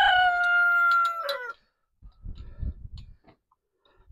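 Rooster crowing once, the drawn-out final note held for about a second and a half and then dropping away. A low muffled rumble follows near the middle.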